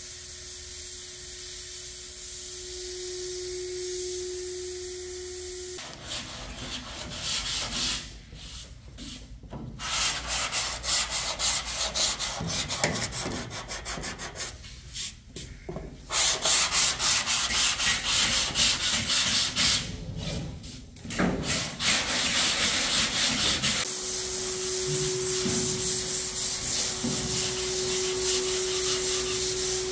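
Hand sanding of primer on a steel car body panel: repeated rubbing strokes of sandpaper, with short pauses between runs. A steady hum sits under the first few seconds and again near the end.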